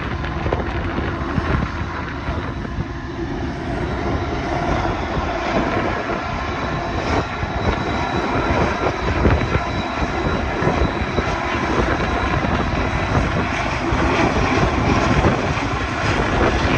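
EMD diesel locomotives of a freight train running past, a deep steady engine rumble that slowly grows louder as the train draws closer.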